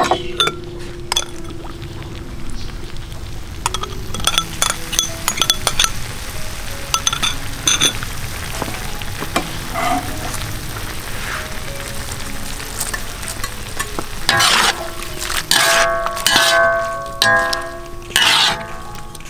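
A stir-fry of pork liver and vegetables sizzling in a large wok, with repeated clinks and scrapes as a metal spatula turns the food against the pan.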